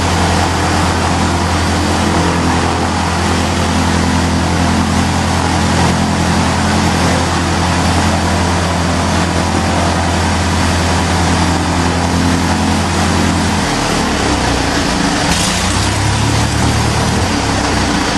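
Light aircraft's piston engine running steadily with the propeller turning, during the first engine runs of a newly built plane. About three-quarters of the way through, the engine note changes, dropping and turning rougher.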